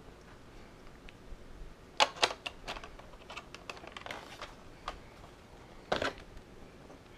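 Hard plastic clicks and knocks from a Nerf Rival Zeus blaster and its rail accessories being handled. A quick run of sharp clicks comes about two seconds in, lighter scattered ones follow, and a louder knock comes near the end.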